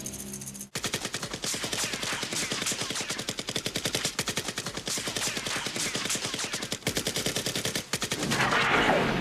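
Rapid automatic gunfire from an action-film soundtrack, about ten shots a second, sustained for several seconds, ending in a louder rushing burst near the end.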